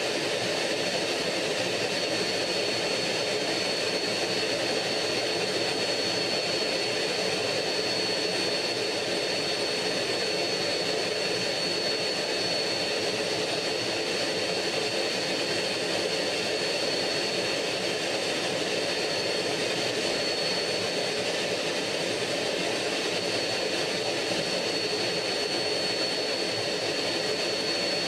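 MiG-15 jet fighter in flight heard from inside the cockpit: steady jet engine noise with a constant high whine over it.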